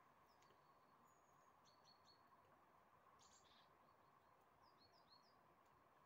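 Faint, short high chirps of small songbirds, coming in several quick groups, over a steady faint hiss.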